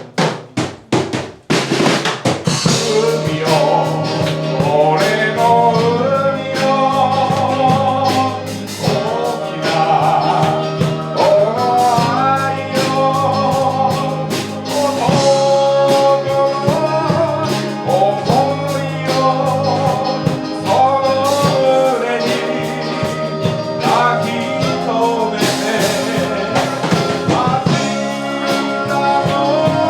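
A live band starting a song: a few sharp drum hits, then singing over drum kit and backing instruments from about two seconds in.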